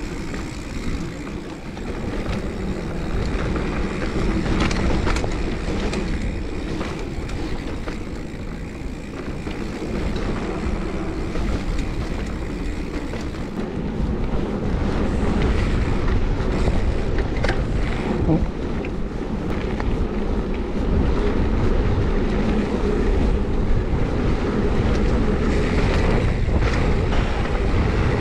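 Mountain bike riding a dirt forest trail: wind buffeting the camera microphone over a steady rumble of tyres on the ground, with scattered knocks and rattles from the bike. It grows louder from about halfway through.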